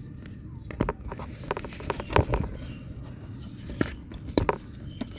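Hard, cement-set dirt being crumbled and crushed by hand: a series of irregular crunches and cracks in two clusters, about a second in and again near four seconds.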